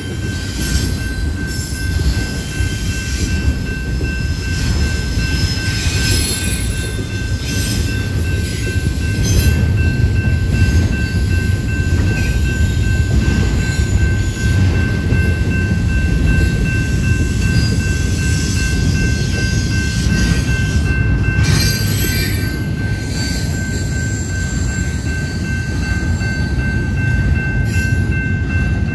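Double-stack intermodal container train rolling past: a steady heavy rumble of wheels on rail, with a thin steady high-pitched tone over it and occasional brief clatters.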